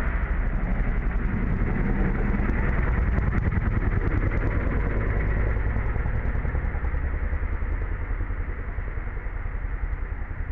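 A steady low engine rumble, running evenly without revving, easing slightly in level toward the end.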